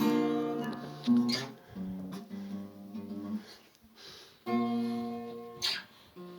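Guitar chords strummed one at a time with short pauses between them, each left to ring and die away.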